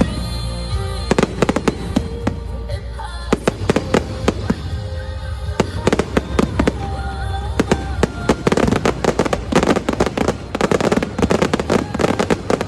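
Fireworks going off in rapid, overlapping bangs and crackles, with music playing underneath; the crackling becomes dense and continuous about two-thirds of the way through.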